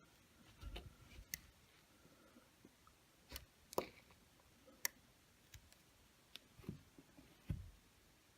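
Scattered light clicks and taps of small repair tools and phone parts being handled on an opened iPhone, about seven in all, some a little heavier with a dull knock.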